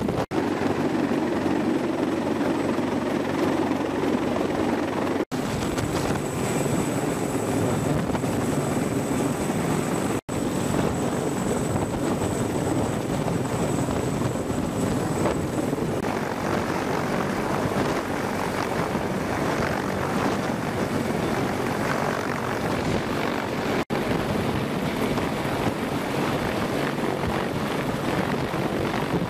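CH-53E Super Stallion heavy-lift helicopter hovering close overhead: the steady, loud churn of its rotors and three turbine engines, with a thin high turbine whine over part of it. The sound breaks off for an instant three or four times.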